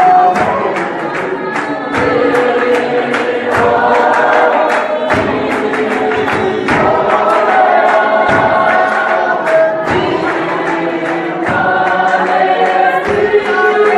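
A church choir of men and women sings a gospel hymn together in held, harmonised lines. Sharp hand claps keep a steady beat, about two a second.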